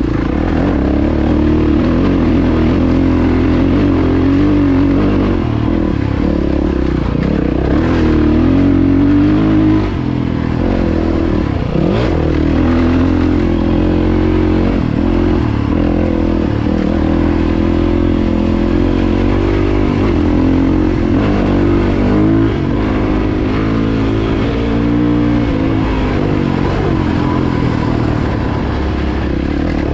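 Yamaha WR450F's single-cylinder four-stroke engine running under way on a dirt track, the revs rising and falling with the throttle, with a brief drop in level about ten seconds in.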